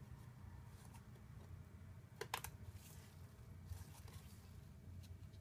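Faint light clicks of thin wooden pieces being handled and pressed together, with a quick double click about two seconds in, over a low steady hum.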